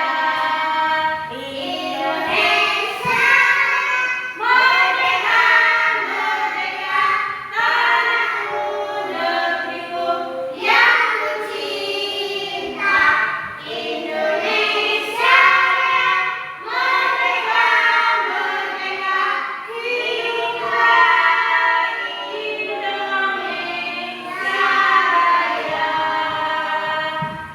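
A group of children singing together, the voices running continuously through a song.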